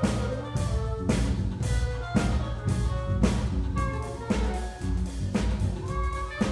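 Live contemporary ensemble music: a drum kit strikes a steady beat about twice a second under layered held notes from the other instruments.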